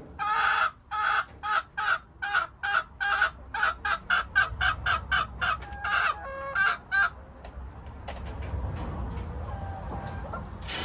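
A chicken clucking in a long run of short, quick clucks, about two or three a second, crowding closer together midway, for about seven seconds. After that only a low rumble is left.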